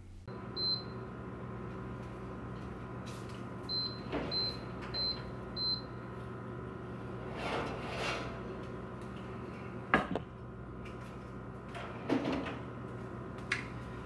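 Oster digital toaster oven's timer beeping at the end of the bake: one short high beep, then four more evenly spaced a little over half a second apart. Later come a couple of sharp knocks as the hot metal bread pans are lifted out and set down, over a steady low hum.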